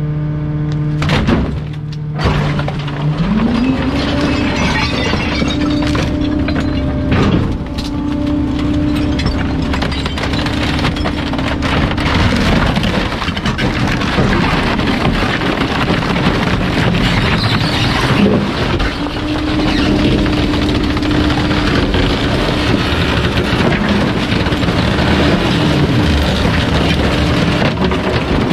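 Bulk waste truck's engine revving up and held at high speed to drive the hydraulic crusher, twice, dropping back about twelve seconds in and again at the end. Wood and other bulky waste crack and break as they are crushed, with scattered sharp knocks.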